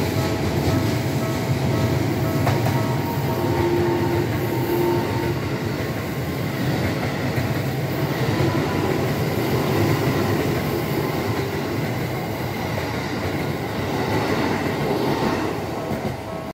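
An electric commuter train running through a level crossing, its wheels rumbling over the track, the rumble dying away near the end. The crossing's warning bell rings steadily underneath.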